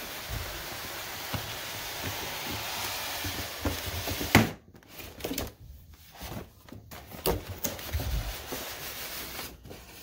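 Cardboard box sleeve sliding off a polystyrene foam packing box, a steady rubbing hiss for about four seconds that ends in a sharp knock, followed by scattered light knocks and handling of the foam and cardboard.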